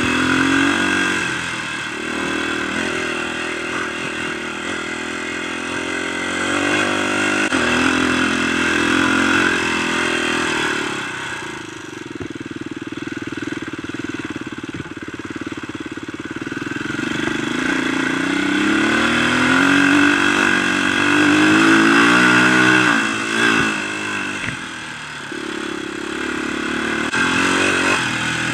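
Dirt bike engine running under way, its pitch rising and falling as the throttle is opened and closed. About two-thirds through, the revs climb steadily for several seconds, then drop off sharply.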